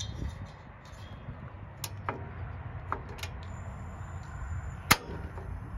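A few sharp clicks as a propane tank valve and a Blackstone griddle's burner control knob are handled, the loudest near the end: the knob's igniter snapping to light the burner.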